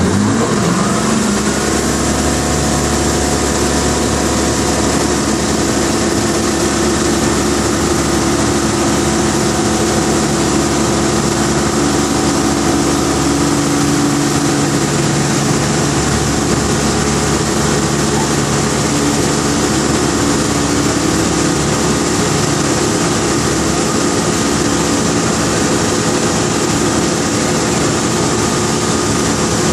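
Dornier Do 27's engine and propeller heard from inside the cockpit, rising in pitch as the throttle is opened about a second in, then running steadily at takeoff power.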